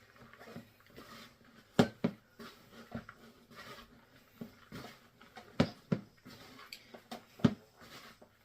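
A stiff yeasted bread dough being mixed by hand in a large bowl, with scattered sharp knocks, several in quick pairs, as the spoon or dough strikes the bowl.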